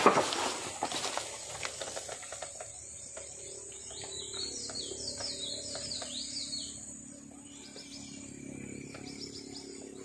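Small birds chirping in a series of quick, repeated down-slurred notes, over a faint low steady hum. Brief rustling and crackling of dry bamboo leaves and stems in the first second or so.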